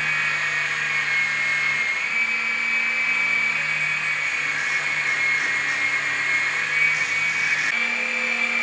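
A mini metal woodturning lathe's small electric motor running with a steady high-pitched whine, its pitch dipping slightly now and then, while a piece of wood spins and is shaped with a hand-held turning stick.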